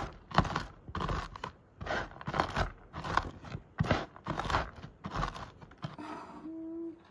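Wooden rolling pin pressed and rolled back and forth over shelled walnut kernels on a wooden board, crushing them with a steady run of crunching strokes, about one and a half a second. The strokes stop near the end.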